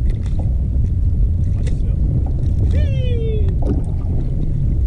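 Steady low rumble of wind buffeting the microphone over open water, with a brief falling cry about three seconds in.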